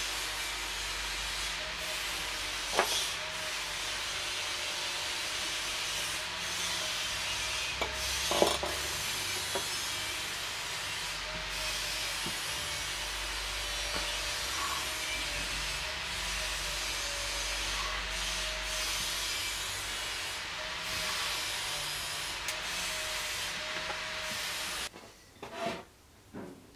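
Steady hiss under the soft rubbing and a few light knocks of hand-stitching a leather scabbard with needle and thread on a wooden bench. The hiss stops abruptly near the end, leaving a few quieter handling noises.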